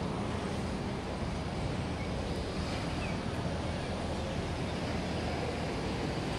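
Wind buffeting the microphone: a steady low rumble with no breaks.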